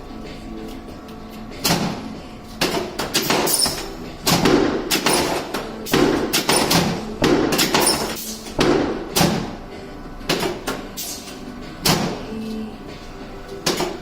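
Irregular knocks and thuds from a chiropractic adjustment on a treatment table, more than a dozen sharp impacts starting a little under two seconds in and spaced about half a second to a second apart.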